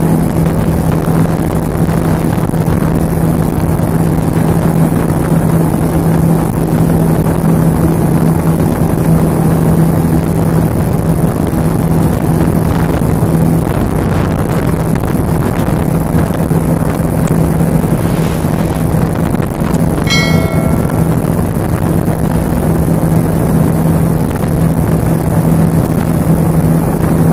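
Speedboat's twin outboard motors running steadily at high speed, a constant drone over the rush of the wake and wind. About twenty seconds in, a brief high-pitched ringing tone sounds over it.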